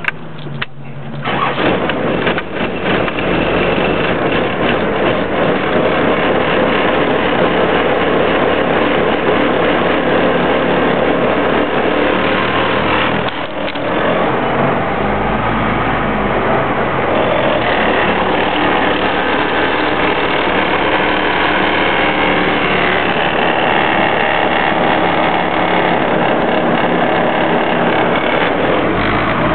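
Vehicle driving, heard from inside the cabin: steady engine and road noise, dipping briefly about 13 seconds in.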